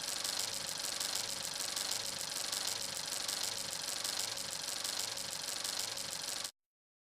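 A steady, fast mechanical rattle over a hiss, with a faint steady hum beneath, cutting off suddenly near the end.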